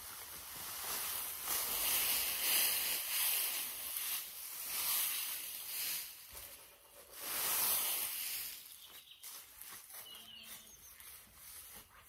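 Loose straw rustling and swishing as it is lifted and shaken out with a pitchfork, in several swells, going quieter after about nine seconds.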